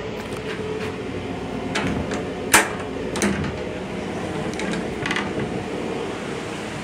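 Steady running noise of a Long Island Rail Road M9 railcar heard inside its restroom, broken by several sharp clicks and knocks. The loudest comes about two and a half seconds in.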